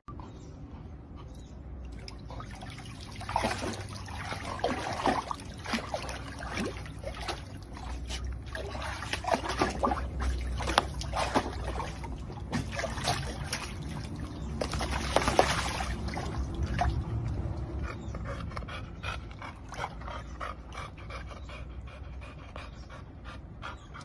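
Water splashing and sloshing in a small collapsible plastic pet pool as a golden retriever wades and moves about in it, in irregular splashes that are busiest from a few seconds in until about two-thirds through, then quieter.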